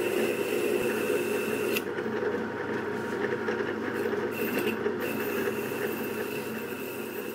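Drill press spinning a wire wheel brush while small steel parts of a compass cutter are held against it, a steady whirring scratch of wire bristles on metal as the parts are cleaned. The high scratching thins out about two seconds in as one part is swapped for another, and comes back about five seconds in.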